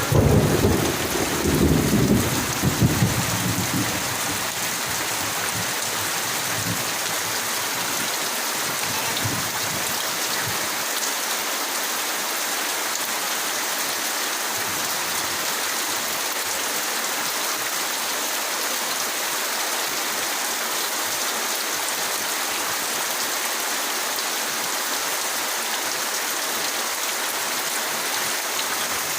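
Heavy rain falling steadily, an even hiss of rain on surfaces, with a low rumble in the first few seconds that then fades out.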